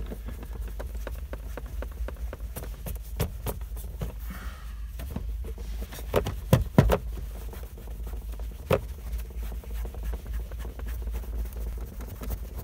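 Microfiber cloth rubbing and buffing wax on a plastic gauge cluster lens, with scattered soft taps and clicks and a few sharper knocks a little past halfway, over a steady low hum.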